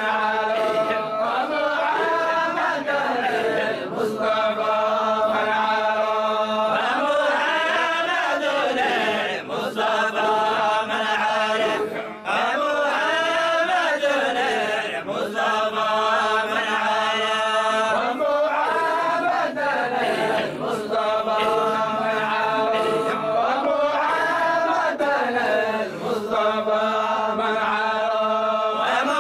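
A group of men chanting a Sufi dhikr of the Zaylaciyya order together. It is a continuous melodic chant, with long held notes that rise and fall, and it goes on without a break.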